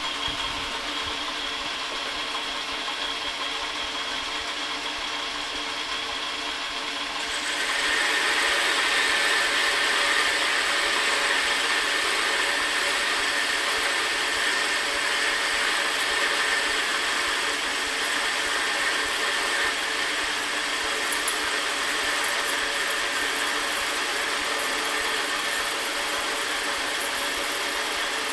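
Metal lathe running with a steady gear whine. About seven seconds in, a spring-mounted cut-off blade starts cutting into a spinning 1-inch steel bar, and a louder, steady cutting noise joins the machine sound and holds on.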